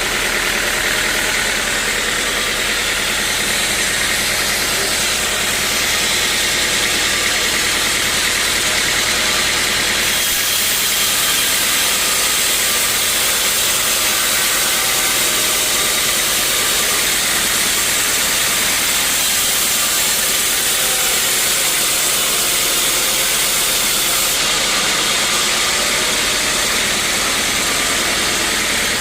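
Sawmill machinery running steadily, with a loud high hiss over a low hum. The hiss grows stronger about ten seconds in and eases back near the end.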